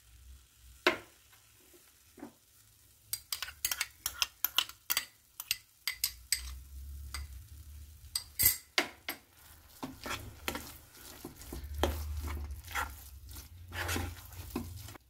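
Flat metal spatula scraping and knocking against a nonstick kadhai while stirring ketchup into a thick potato-and-vegetable mash. Scattered scrapes for the first few seconds, then a quick run of clicks and scrapes.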